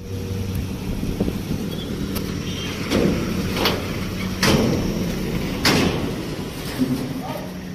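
A hatchback car driven slowly up the steel loading ramp of a car-carrier truck: a low, steady engine hum, with about four loud metal clunks in the middle as the wheels roll over the ramp plates.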